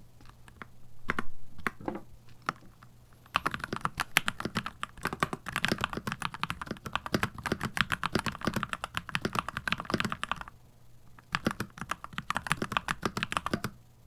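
Typing on a Keychron C2 Pro 8K mechanical keyboard. A few separate keystrokes come first, then about seven seconds of rapid typing, a short pause, and another run of fast typing near the end.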